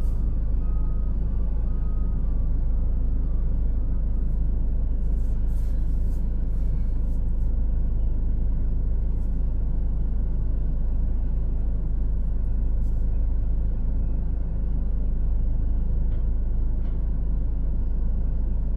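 Steady low rumble of an idling vehicle engine, heard from inside the cab.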